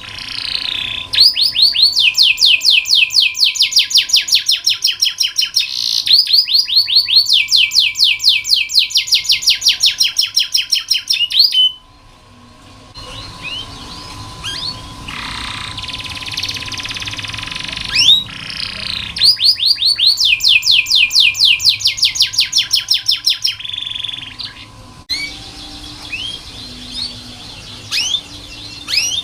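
Domestic canary singing: two long, fast rolling trills of rapidly repeated rising high notes, separated and followed by quieter stretches of scattered short chirps.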